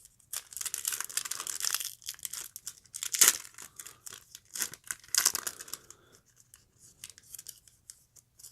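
Wrapper of a trading card pack crinkling and being torn open, in a run of short rustling bursts with one sharper rip about three seconds in, tailing off into faint rustles.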